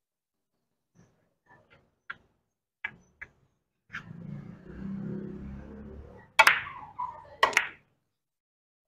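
A carom billiards shot: a few faint taps, then the cue tip strikes the cue ball about four seconds in. The ball rolls with a low rumble across the cloth, then two loud, sharp ball-on-ball clicks come about a second apart.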